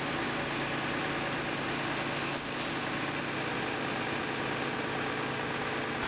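Log skidder's diesel engine running steadily at low revs as the machine creeps forward, wrapping a tire chain around the tire.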